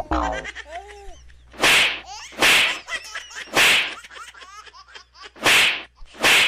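Comedy sound effects laid over the picture: five short, loud swishing whooshes, with giggly warbling laughter between them.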